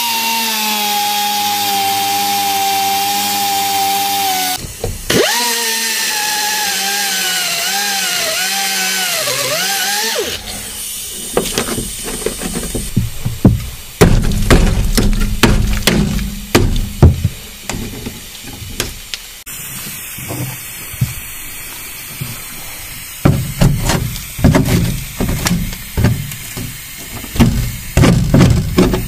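A power cutting tool whining at a steady pitch, stopping briefly about four and a half seconds in, then running again with its pitch repeatedly dipping and recovering as it cuts into rusted steel wall bracing. After about ten seconds it gives way to irregular knocks and bangs as the cut-out bracing is worked loose.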